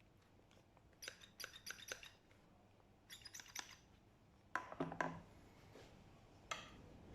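Small hard parts clicking and tapping in quick runs, with a few louder knocks about two-thirds of the way through: a pressure washer gun being handled and its parts fitted back together.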